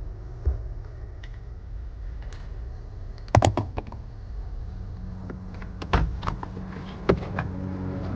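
A series of sharp clicks and knocks over a low, steady rumble, with a steady hum joining about five seconds in.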